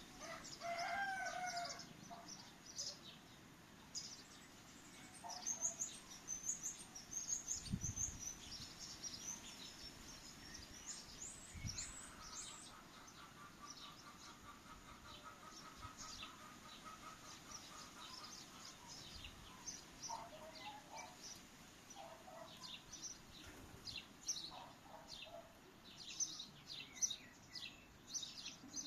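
Small birds chirping and singing: many short, high calls, and a steady trill from about twelve to sixteen seconds in. A few lower calls come near the start and again about twenty seconds in.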